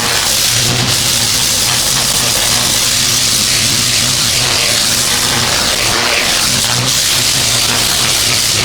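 Pressure washer with a turbo nozzle spraying concrete: a steady, loud hiss of the water jet over the constant hum of the machine's engine.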